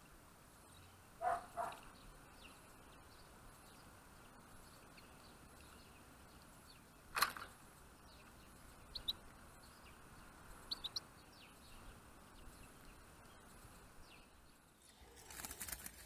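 The spring-loaded door of a wooden finch trap cage snapping shut once, sharply, about seven seconds in as a greenfinch is caught, with a few brief high bird chirps after it over faint outdoor background.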